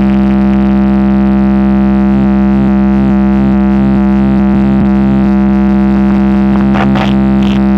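DJ bass-test track played loud through a PA sound system: one buzzing electronic tone held steady on a single low pitch over a deep bass drone, with a few short higher sounds near the end.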